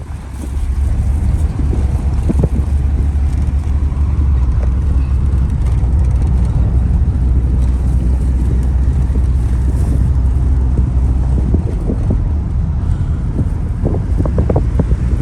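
Car on the move: a steady low rumble of engine and road noise, with wind buffeting the microphone.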